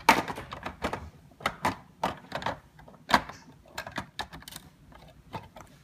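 Plastic Mega Bloks construction pieces clicking and knocking as building plates are pressed down onto their studs: a run of irregular sharp clicks, the loudest just after the start and about three seconds in.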